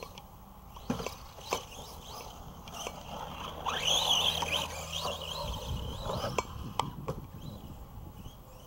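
Electric RC monster truck powering through a dirt turn, about four seconds in: a motor whine that rises and falls, with tyres spraying dirt. Scattered sharp clicks before and after.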